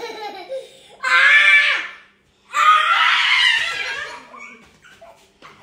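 Young child's excited shrieks in play, two loud squeals: a high pitched one about a second in, then a longer, rougher scream that tails off.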